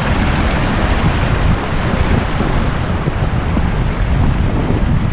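Mountain river rushing over rocks in a steady loud rush, with gusts of wind buffeting the microphone in a low rumble.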